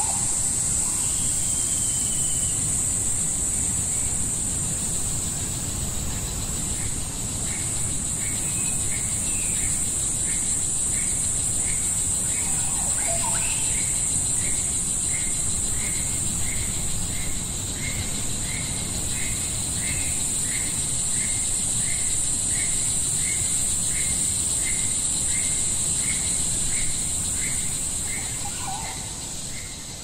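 Tropical rainforest ambience: a steady high-pitched insect drone, with a short chirping call repeated a little more than once a second and a few other bird calls, over a low rumble.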